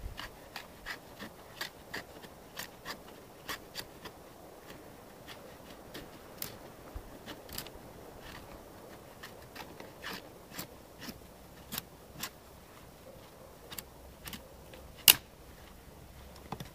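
Knife blade shaving curls off a stick of dead branch wood to make fire-starting tinder: a run of short, irregular scraping strokes, two or three a second. One sharp, much louder click comes about fifteen seconds in.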